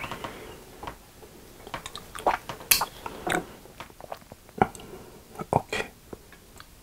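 Close-miked handling of a crumb-coated corn dog as it is lifted off the plate: scattered sharp clicks and crisp crackles, bunched about two to three seconds in and again near the end.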